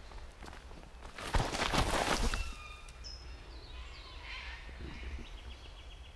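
Shoes and body scuffing and sliding on dry leaves and loose dirt for about a second, starting about a second in: a slip and fall on a bush trail. Birds call afterwards with short whistled notes and a quick run of repeated notes near the end.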